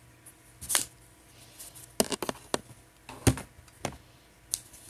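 A makeup compact and brush being handled: a handful of short clicks and taps, bunched about two seconds in and loudest a little past three seconds.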